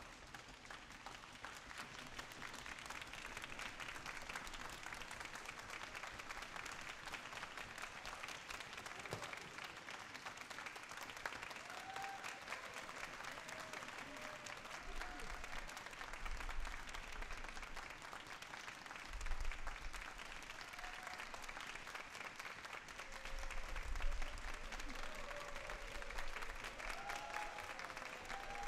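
Audience applauding steadily, with a few voices calling out over the clapping and some low thumps in the second half.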